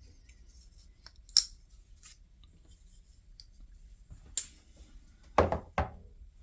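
Folding knives being handled: a couple of sharp metallic clicks, then two louder knocks close together near the end, as of knives set down on a hard surface.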